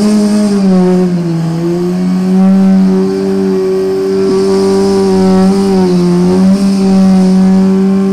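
Kawasaki Ninja 636 sportbike's inline-four engine held at steady high revs on the start line, waiting to launch. The note holds one high pitch, dipping slightly a couple of times.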